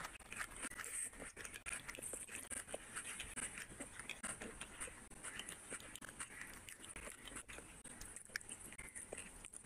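Mouth sounds of a person eating rice and curry by hand: wet chewing and lip smacks, heard as many small irregular clicks, with the soft squish of fingers mixing rice and fish curry near the end.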